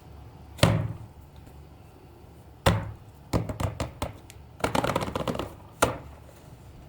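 A series of sharp knocks and clatters from hard objects being handled: a loud knock, another about two seconds later, two quick flurries of rattling taps, then one more knock.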